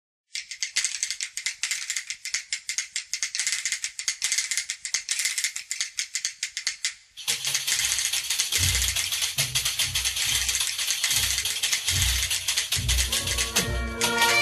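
Galician folk music: a fast jingling rattle of hand percussion, joined about seven seconds in by a steady low drum beat, with a bagpipe starting up near the end.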